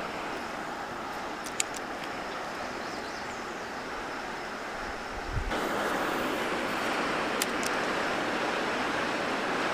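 Steady rush of water pouring over a small dam spillway into a creek. It gets louder about halfway through, with a few faint clicks.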